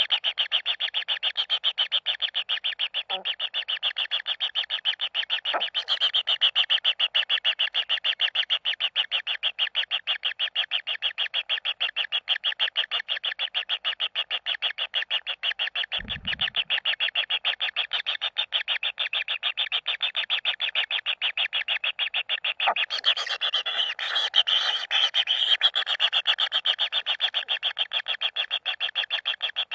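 Kingfisher chicks churring in the nest: a fast, steady, rhythmic pulsing call that runs on without a break, with a low thump about sixteen seconds in.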